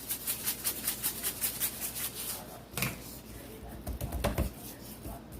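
Seasoning shaker shaken quickly over the meat: a dry rattle, about four or five shakes a second, stopping about two seconds in. A few soft low thumps follow.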